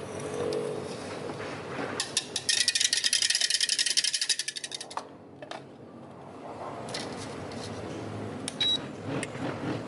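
A rapid, even run of clicks lasting about two and a half seconds, starting about two seconds in, with a few lighter knocks and clinks of kitchen work around it.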